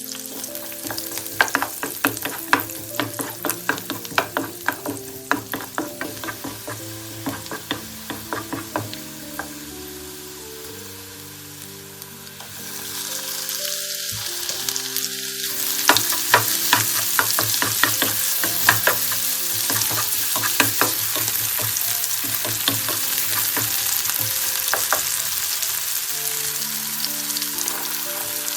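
Food stir-frying in oil and butter in a hot pan, with a spatula clicking and scraping against the pan over the sizzle. About twelve seconds in, the sizzle grows much louder and stays strong.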